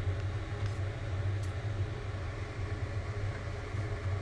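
Steady low rumble and hiss of a lit gas stove burner with a pot of broth simmering on it, with a few faint light ticks.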